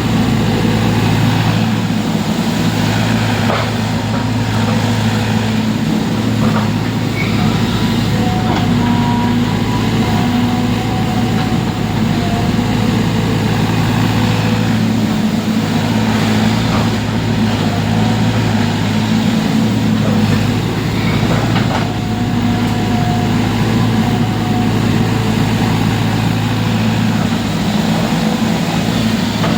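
A heavy engine running steadily at constant speed, with a strong low hum and a few faint knocks.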